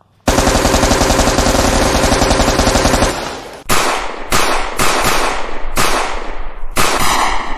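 Gunfire: a continuous automatic burst for about three seconds, then single shots about two a second, each trailing off.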